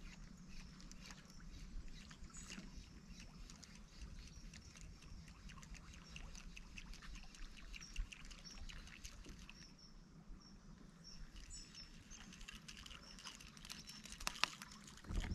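Faint outdoor ambience on the water: a low hiss with scattered small ticks and patters, and a few faint high bird chirps in the middle.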